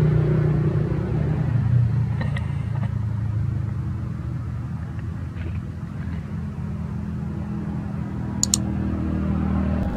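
A steady low rumble like an engine running, with a short sharp click about eight and a half seconds in.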